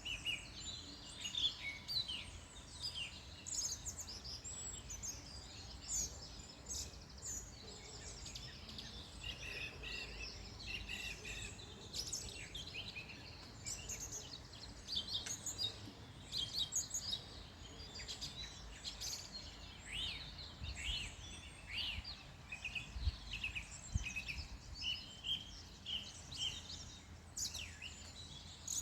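Several small songbirds chirping and singing over one another in a busy mix of short, quick notes and trills, over a steady low rumble.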